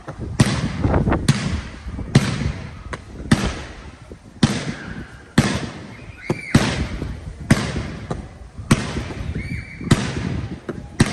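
Fireworks display: a steady series of sharp bangs from bursting shells, about one a second, each trailing off in a rolling echo. Two brief whistles come through, one a little past the middle and one near the end.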